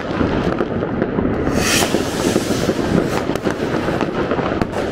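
Dense, unbroken crackling and banging of many fireworks and firecrackers going off all around at once, like explosions everywhere, with sharp cracks standing out and a short sharp hiss about one and a half seconds in.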